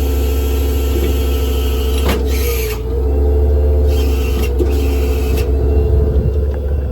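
Ford F550's 6.8-litre V10 running with the PTO engaged, driving the hydraulic pump that lowers the truck's outriggers: a steady low hum with a constant whine. Bursts of hiss come in about two seconds in and again around four to five seconds in as the hydraulics work.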